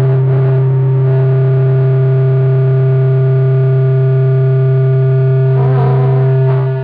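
Electric guitar through a distorted amplifier, sounding a loud low hum with several held ringing tones above it. Near the end the tones waver, then drop away, leaving the amp's hum.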